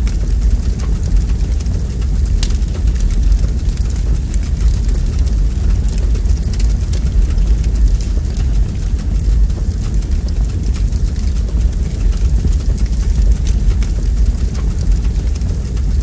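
Wood fire burning in a fireplace: a steady low rumble of flames with frequent sharp crackles and pops from the logs, one louder pop about two and a half seconds in.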